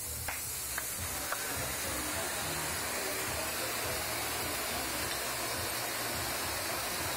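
Steady hiss of a flameworking torch flame at a glass bench, with a few light clicks in the first second and a half.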